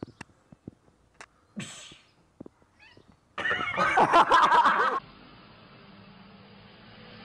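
A cat meowing loudly for about a second and a half past the middle, after a few faint scattered clicks. It cuts off suddenly to a faint steady hum.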